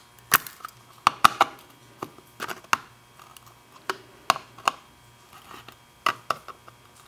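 Flat metal blade prying small ceramic chip capacitors off a circuit board: a dozen or so sharp clicks and ticks at irregular intervals as the chips snap loose.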